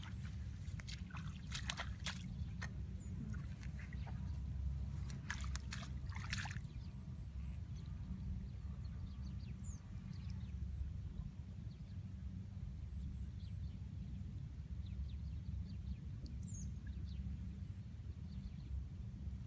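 Water sloshing and splashing as people work in the water fishing, with clusters of sharp splashes about a second in and again around five to six seconds in, over a steady low rumble.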